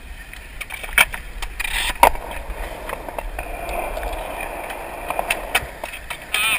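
Skateboard wheels rolling over concrete, with two sharp clacks of the board about one and two seconds in and a few lighter ticks.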